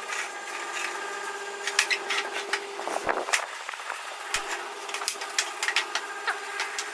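Wooden folding stool being handled and set down on a tile floor: scattered clicks and knocks of wood, with two dull thuds about three and four and a half seconds in, over a steady hum.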